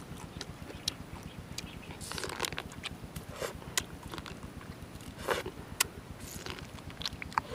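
Biting into and chewing a juicy cashew apple: wet mouth sounds with scattered small clicks and a few short bursts of chewing noise.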